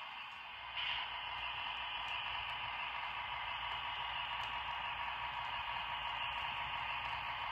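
HO scale model diesel switcher locomotive running slowly along the track with a boxcar, a steady hissing whir of motor, gears and wheels on rail, louder from about a second in.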